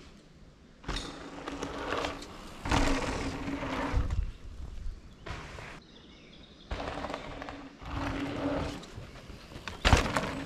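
Mountain bike riding down a dirt and gravel trail: tyre and wind noise rises and falls in several surges. Some surges carry a steady hum from the electric mid-drive motor under power. A sharp knock comes near the end.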